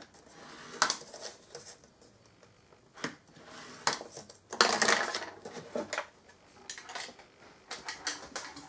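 A scoring stylus drawn through pattern paper along the grooves of a plastic scoring board, in several short scratchy strokes, with the paper turned on the board between them. The longest stroke comes about halfway through.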